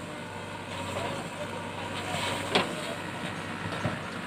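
Heavy diesel engine running steadily with a low hum, and a single sharp clank about two and a half seconds in, with a fainter knock near the end.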